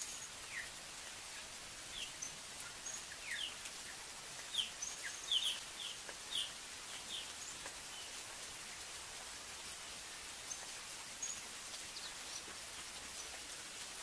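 Steady rain falling on the forest canopy, an even hiss. Over it a bird gives a run of short, sharp calls, each falling in pitch, busiest from about two to seven seconds in, then only now and then.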